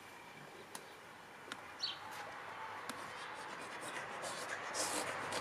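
Faint splashing and lapping of pool water stirred by a child paddling in an inflatable swim ring, growing louder near the end.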